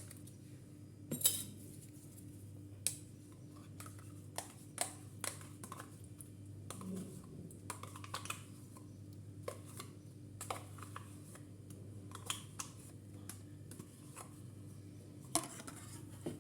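A spoon clinking and scraping against a mixing bowl and a yogurt pot as the yogurt is spooned into cake batter: scattered light clinks, with a few louder knocks just after the start and near the end.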